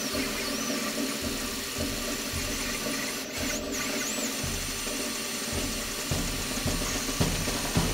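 A Monoprice Maker Select 3D printer with an E3D Titan Aero extruder running a print: its stepper motors hum steadily, with short high whines that swoop up and down as the print head changes speed, once near the start and again about three seconds in.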